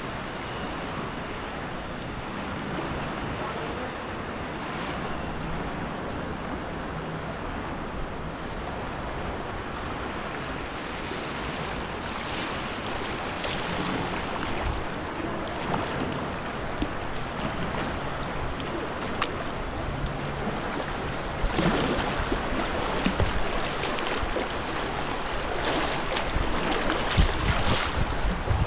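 River water rushing and splashing around a kayak in choppy, fast current, heard at water level. The splashing gets rougher and louder about three-quarters of the way through.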